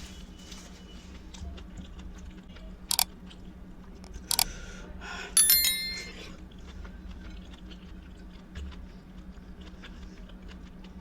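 Two sharp clicks, then a louder metallic clink that rings briefly: metal dishware or a utensil knocking during a meal.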